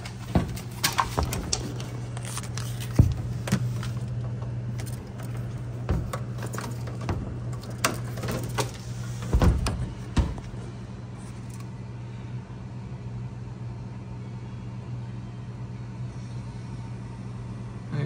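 Refrigerator compressor running with a steady low hum, the sealed system newly charged with refrigerant after an evaporator leak repair. Scattered clicks and knocks come mostly in the first half, with the loudest bump about nine seconds in.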